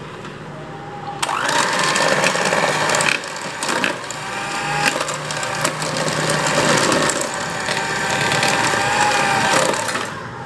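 Electric hand mixer starting about a second in and running at low speed, its motor whining steadily while the twin beaters clatter through butter, margarine, powdered sugar and egg in a plastic bowl, creaming them together; it stops near the end.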